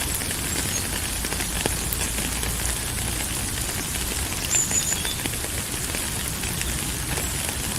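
Steady rain falling, a dense even hiss of many small drops pattering. It has a low rumble underneath and a brief high chirp about halfway through.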